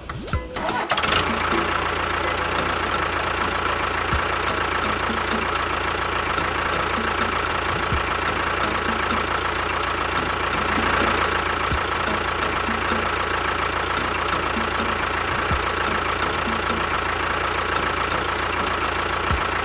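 A small motor running steadily, with a constant whine over a rattly, engine-like noise, starting about a second in.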